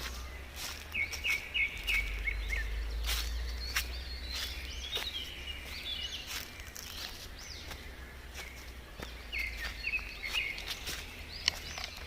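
Birds singing in woodland: quick runs of repeated chirps about a second in and again near the end, over scattered footstep clicks on a forest trail and a low rumble.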